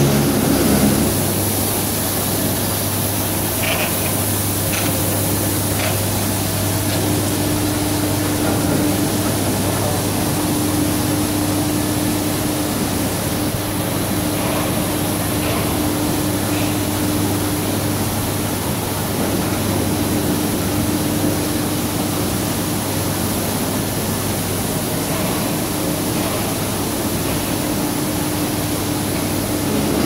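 Maxis fully automatic carpet washing machine running while it washes a carpet: a steady mechanical hum under an even hiss, with a steady low tone through the middle.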